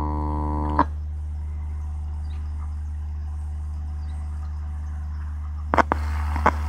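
Steady low mains hum from the amplifier and loudspeaker setup. A buzzier tone cuts off with a sharp click about a second in, and a cluster of crackling clicks comes near the end as the speaker connections are changed.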